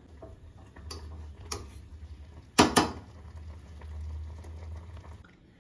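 A steel pot of Maggi noodles in melted-Cheetos water boiling on a gas stove, with a low steady rumble. A metal spoon stirring in the pot knocks against it a few times, loudest twice in quick succession about two and a half seconds in.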